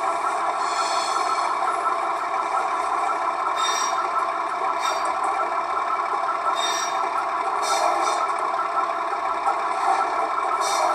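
Loudspeaker sound of a Gauge 1 model V 160 diesel locomotive's sound decoder: the diesel engine running at low speed, with short high-pitched curve-squeal effects from the wheels every few seconds.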